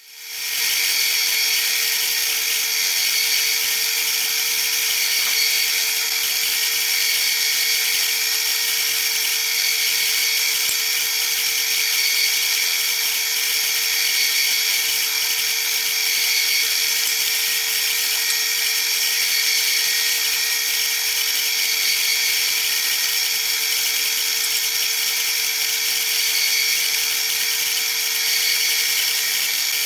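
Pillar drill running steadily with a constant whine while drilling 3.5 mm pilot holes in sheet metal.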